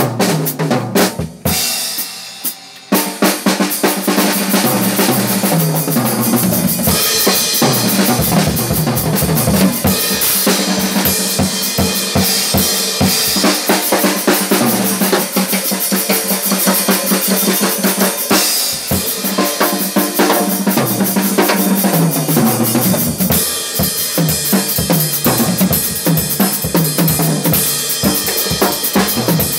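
Acoustic drum kit played live: a few separate hits over the first couple of seconds, then a fast, dense run of bass drum, snare, toms and cymbals that keeps going to the end.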